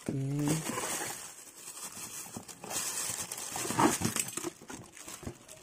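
Thin plastic bag packaging crinkling and rustling as hands unwrap a microphone accessory, with a short hum from a voice near the start.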